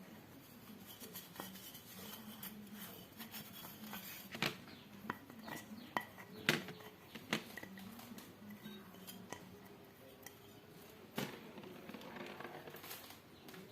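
Scattered light metallic clicks and taps of small parts and tools being handled, over a faint steady hum.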